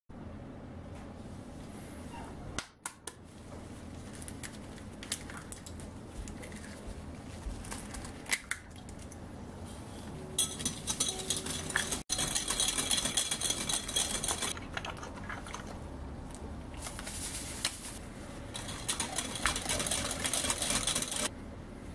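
Granulated sugar poured onto eggs in a glass bowl, a gritty hiss of pouring grains lasting about four seconds. After a short pause comes hand-whisking of the eggs and sugar against the glass bowl: a quick run of light scraping clicks for several seconds near the end. A few isolated clicks occur in the first half.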